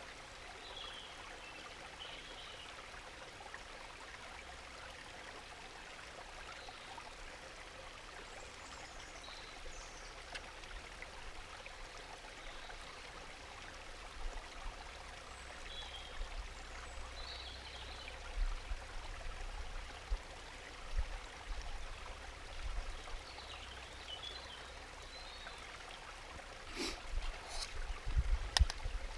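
A river or stream running steadily, with scattered faint high chirps. Near the end come a few sharp clicks and low knocks as a spoon works in a metal cooking pot.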